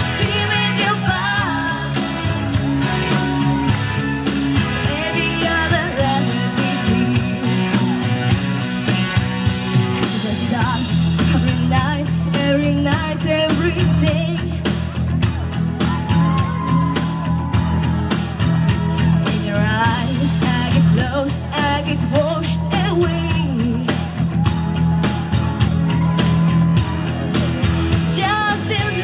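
Woman singing a pop song into a microphone over loud backing music, her voice carrying a melody that moves and breaks between phrases.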